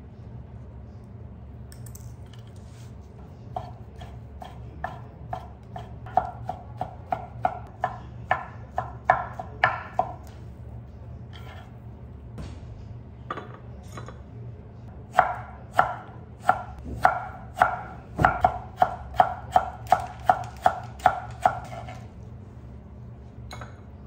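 Chef's knife slicing a rolled thin egg omelette into fine strips on a wooden end-grain cutting board: sharp, even knife taps on the board, about two to three a second, in two runs with a pause between them. A low steady hum lies underneath.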